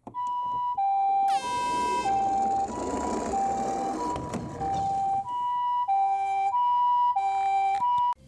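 Ambulance-style two-tone hi-lo siren, the Japanese 'pii-poo' pattern, switching between a higher and a lower pitch about every half second. About a second in, a falling sweep sounds, with a rushing noise under the siren for the next few seconds.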